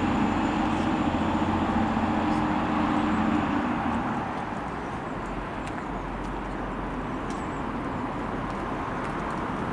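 A train running past on the main line, with a steady hum and rumble that fades away about four seconds in. After that, only a quieter, even background rumble remains.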